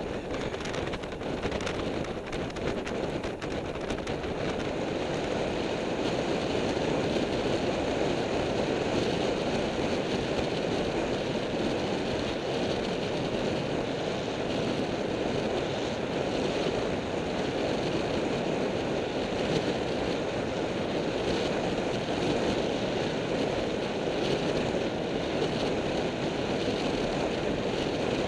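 Wind rushing over the microphone of a camera on a road bike at speed, a steady roar that grows a little louder about five seconds in, with a few light knocks in the first few seconds.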